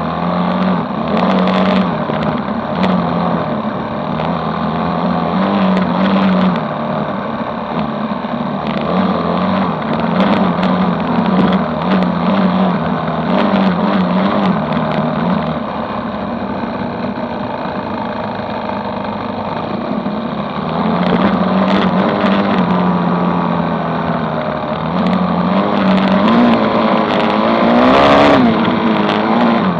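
Dirt bike engine heard on board while riding, its pitch rising and falling again and again as the throttle opens and closes through the gears, over a steady rush of wind and frequent sharp knocks and buffets.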